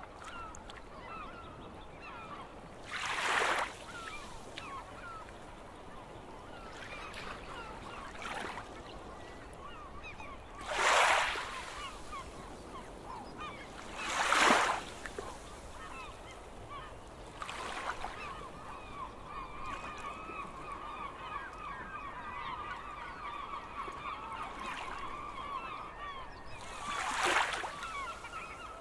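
A flock of gulls calling all together in a continuous chattering chorus that thickens in the second half. Sea waves surge in four times, the loudest sounds, about three seconds in, around eleven and fourteen seconds, and near the end.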